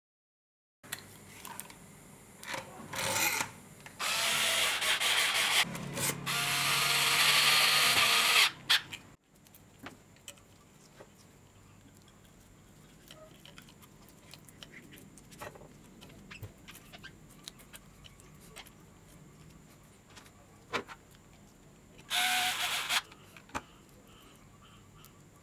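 A small handheld power tool runs twice: once for about four seconds starting about four seconds in, and once briefly near the end. In between there are faint clicks and rustles of metal parts and wires being handled.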